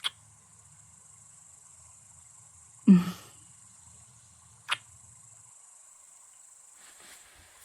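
Steady high chirring of cicadas in a night-time field ambience. Over it come a short hummed vocal sound about three seconds in and a sharp mouth click about a second later, a soft kiss.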